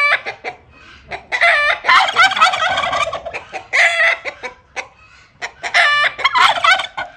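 Domestic turkeys and chickens calling in loud bursts, with turkey gobbling and hen clucking. The loudest, densest stretch comes about a second in and lasts about two seconds, with further calls near four and six seconds.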